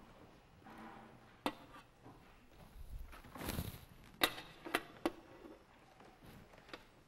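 Handling noise at a laptop: a few sharp clicks and knocks, three of them close together about four to five seconds in, with a brief rustle just before.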